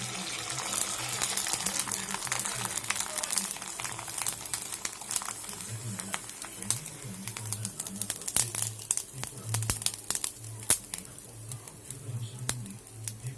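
Crinkling and crackling with many small sharp clicks, densest in the first few seconds and thinning out toward the end.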